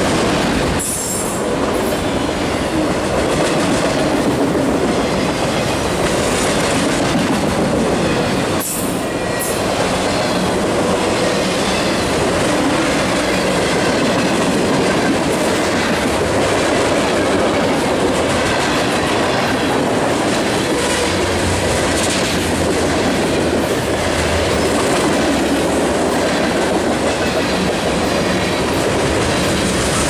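Freight train cars rolling past at close range: a steady rumble and clatter of steel wheels on the rails, with brief high wheel squeals about a second in and again around nine seconds in.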